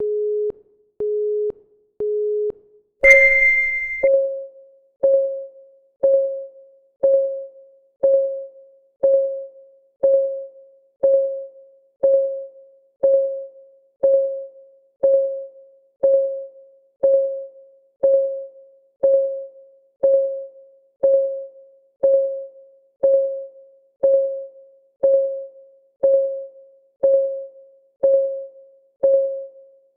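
Countdown timer's electronic sounds: three short, even beeps a second apart, then a louder, higher start tone, then a synthesized clock tick that fades quickly, once every second.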